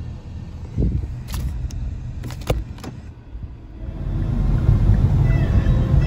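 Car cabin driving noise, a low rumble of road and engine, with a few sharp clicks in the first half; the rumble grows louder about four seconds in.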